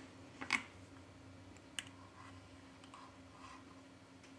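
A few small clicks and taps of repair tools on a smartphone's internal parts: a double click about half a second in and a sharp tick a little later, with fainter ticks after, over a faint steady hum.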